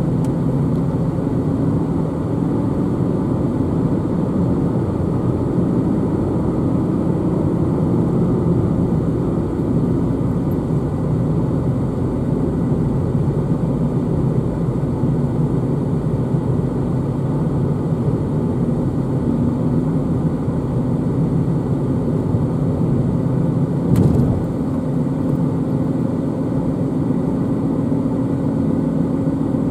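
Steady road and engine noise of a car driving at highway speed, heard from inside the cabin, with one brief knock late on.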